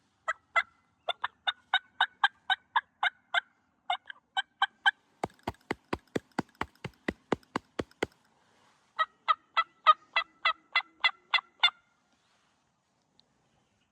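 Wild turkey yelping: rapid, even notes at about four a second in a long series, then a run of sharper, clicky notes, then another series of yelps from about nine seconds in.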